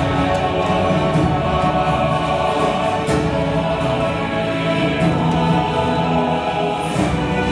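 Recorded music playing over a sound system: a choir singing long, held chords.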